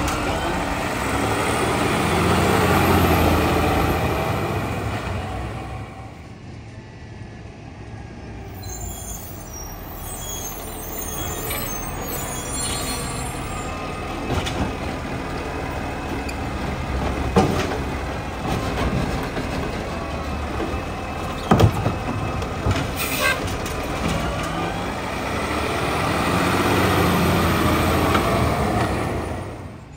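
Rotopac side-loader garbage truck working a curbside cart: its diesel engine revs to drive the arm hydraulics, then settles to a low run, with sharp clunks in the middle as the arm grabs, dumps and sets down the cart, and a short air hiss. The engine revs up again near the end.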